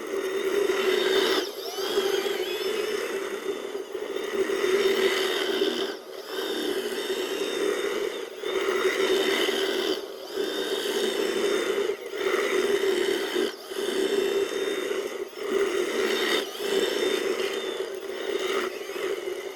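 Bulldozer running as it works, a steady mechanical drone whose level dips briefly every second or two.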